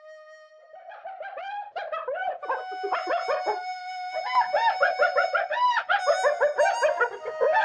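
Spotted hyena 'laughing' (giggling): rapid runs of short, high-pitched calls that each rise and fall, several a second, starting about half a second in, over a held music tone.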